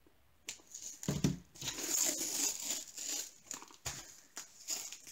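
Adhesive tape being peeled off a rolled diamond-painting canvas, with crinkling of the canvas's plastic film, in uneven rustling pulls. A soft thump comes about a second in.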